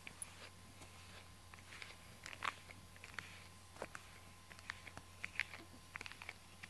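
A brush being drawn through a cat's fur: soft, irregular swishes and small clicks, the loudest stroke about two and a half seconds in.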